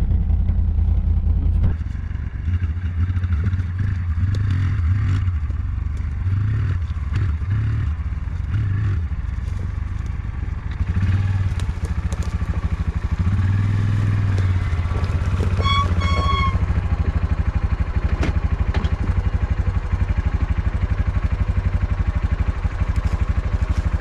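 ATV engine running at low revs, picking up in short spurts a few times and rising for a while about halfway through, as the quad is manoeuvred to turn it around.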